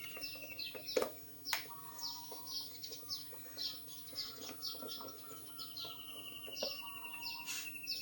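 Birds chirping in quick, falling high chirps, with two longer trills, one at the start and one from about six seconds in. A few sharp clicks stand out about a second in.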